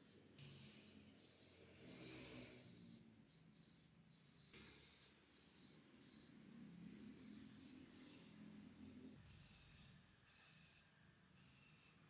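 Aerosol spray-paint can hissing faintly in a string of short bursts, each about a second long, with brief gaps between.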